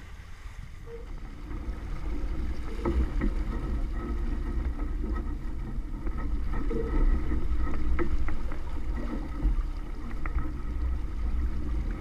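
Water rushing and splashing along a small sailboat's hull under way, with strong wind buffeting the microphone as a low rumble. It grows louder a couple of seconds in, and a few short knocks come through.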